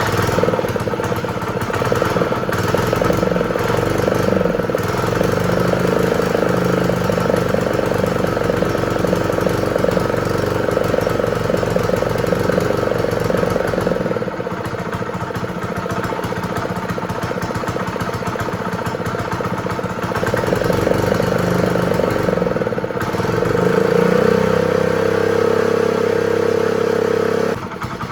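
Honda GX120 single-cylinder four-stroke engine running steadily, right after being pull-started, now firing with an ignition coil swapped in from another engine after its own coil was cutting out the spark. About 23 seconds in, the revs rise, then settle lower near the end.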